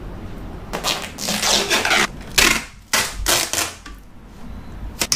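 Clear plastic wrap crackling as it is pulled off the roll and stretched over a padded armrest, in several pulls between about one and four seconds in, with a sharp click near the end.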